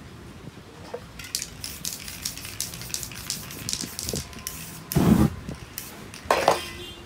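Aerosol spray-paint can giving a quick run of short hissing bursts, followed by two loud whooshes as the sprayed paint on the canvas is set alight.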